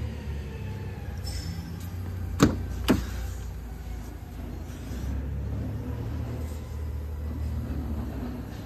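Steady low background rumble with two sharp knocks about half a second apart, roughly two and a half seconds in.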